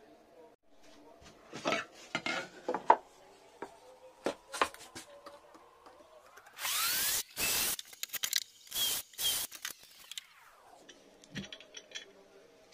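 Bosch cordless drill boring 5 mm holes through the guide holes of a drilling jig into a wooden board: several short loud bursts of drilling, the motor winding up at the start and winding down as it stops. Before the drilling, a run of knocks and clicks as the jig is handled on the board.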